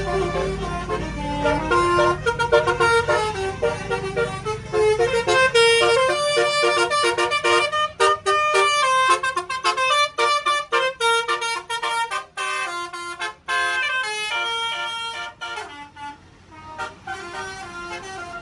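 Tour bus's multi-tone basuri melody horn playing a fast tune of short notes that jump from pitch to pitch. The bus engine rumbles under it for the first few seconds, and the notes come choppier in the second half.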